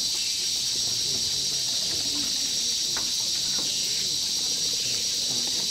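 Steady, high-pitched drone of a rainforest insect chorus, unbroken and even, with faint murmuring voices underneath.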